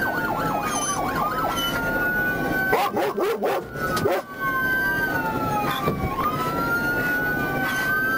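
Police car sirens wailing, more than one at once, each rising and falling slowly in pitch, with a fast yelp in the first second. Around three seconds in, a short burst of harsh noise cuts across them.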